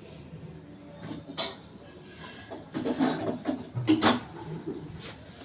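Kitchen clatter: sharp knocks and clinks of dishes and utensils being handled, one about a second and a half in and a louder cluster about four seconds in.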